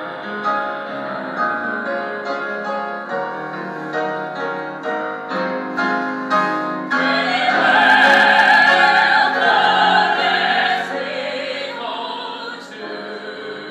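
A man and a woman singing a musical-theatre love duet in an operatic style, with piano accompaniment. About seven seconds in, a woman's voice holds a long, loud high note with vibrato, which then fades away.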